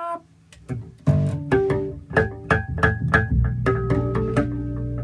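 Five-string electric bass played: a quick run of plucked notes starts about a second in, then low notes ring on under clear, bell-like high harmonics.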